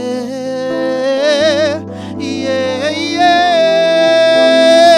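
Portuguese worship song: a singer holds long notes with a wavering vibrato over steady sustained accompaniment chords, with a brief break and a new long note rising in partway through.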